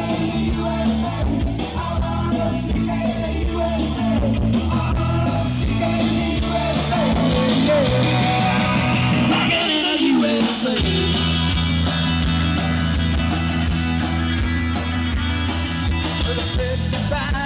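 Pop music with singing and a heavy bass line, played loud through a mobile disco trailer's speaker stacks. The bass drops out for about a second near the middle, then comes back in.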